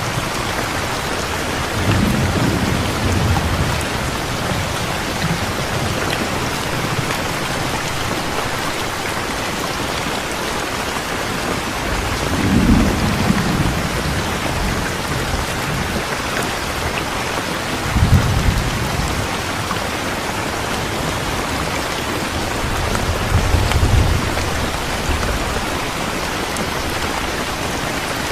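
Steady heavy rain falling, with four low rumbles of thunder spread through it, the one about two-thirds of the way in starting most suddenly.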